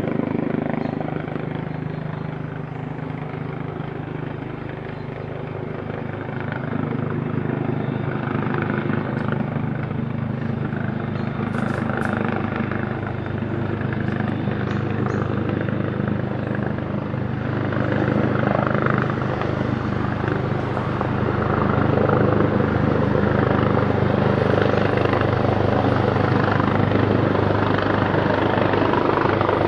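Helicopter coming in to land: steady rotor and engine noise that grows louder through the last third.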